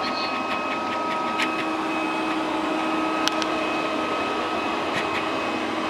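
Polaris PVCR 6001 robot vacuum cleaner running: a steady whirr of its suction motor with a constant hum and a faint whine.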